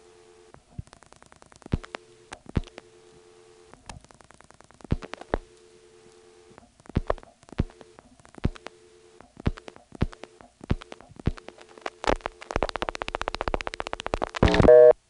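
Analog telephone line from an NX1 crossbar office: a steady two-tone dial tone broken again and again by sharp clicks on the line during a toll call attempt, then a rapid clatter of switching clicks, and near the end a loud interrupted tone in short bursts like a busy signal.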